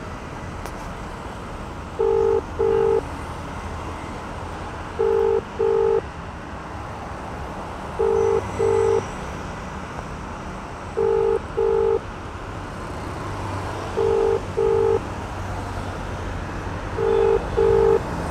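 Telephone ringback tone of an unanswered call: a low double beep repeating every three seconds, six times, over steady street traffic.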